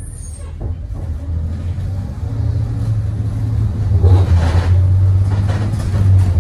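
Thomas Saf-T-Liner C2 school bus heard from the back seat: the engine's low drone grows louder as the bus accelerates, with a brief burst of noise about four seconds in.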